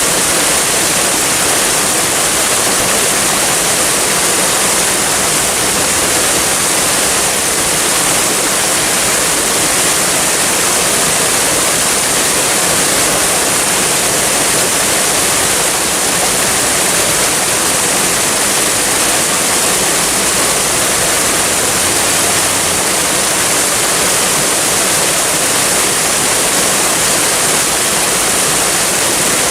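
Waterfall: a steady rush of falling water, even in level, with more hiss than deep rumble.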